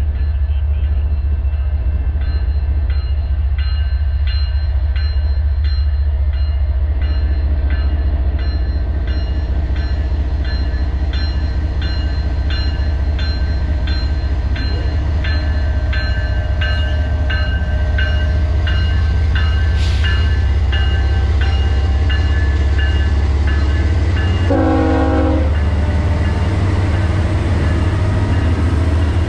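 Canadian Pacific diesel freight locomotives running slowly past with a deep steady engine drone. A bell rings about twice a second for most of the time, and near the end there is one short horn blast.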